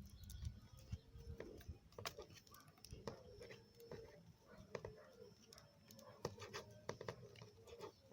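Faint, irregular crinkling and crackling of a sheet of paper being crumpled by hand around a drinking straw.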